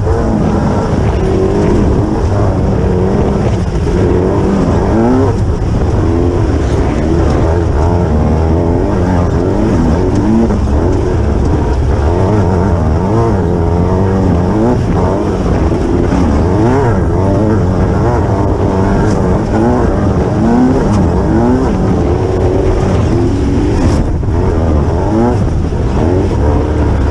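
Onboard sound of a Class 9 off-road race buggy at speed: the engine revs rise and fall again and again as the throttle works over rough desert terrain, over a steady low rumble. A single sharp knock comes near the end.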